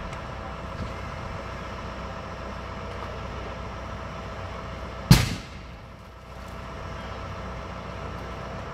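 A burning car gives one sudden loud bang about five seconds in, dying away within half a second, over a steady background hum.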